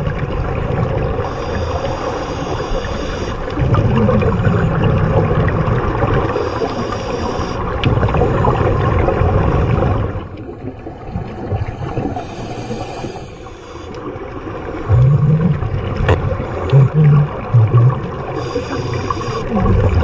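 Scuba breathing underwater: a continuous muffled rumble and gurgle of regulator exhaust bubbles. A regulator hiss comes about every five or six seconds.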